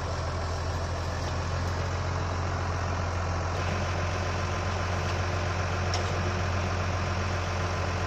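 Tractor engine running at a steady idle, an even low drone.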